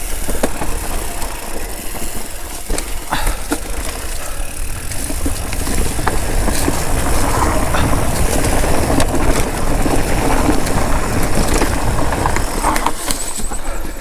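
Electric mountain bike riding down a dirt singletrack: tyres rolling and skidding over dirt and roots, with scattered clicks and knocks of the bike rattling over bumps, and a heavy low rumble of wind on the microphone.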